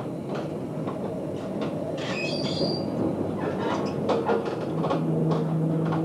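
ICE 1 high-speed train heard from inside the carriage, its running rumble broken by irregular clicks as the wheels cross rail joints and points. A brief high squeal comes about two seconds in, and a steady low hum joins near the end.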